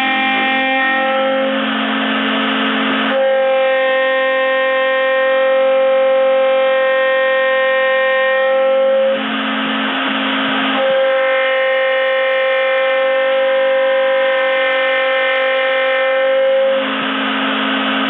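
Spindle of a small CNC milling machine running with a steady high whine while a 6 mm cutter roughs a rotating wooden block on a rotary axis. Three times, for a second or two each, a rougher cutting noise rises over the whine as the cutter bites deeper into the wood.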